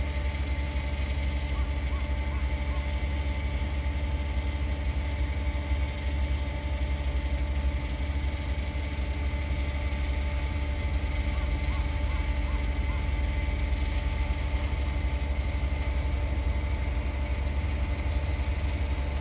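Distant Boeing 737-800 CFM56 jet engines at taxi idle: a steady drone with several held whining tones over a deep, unsteady rumble.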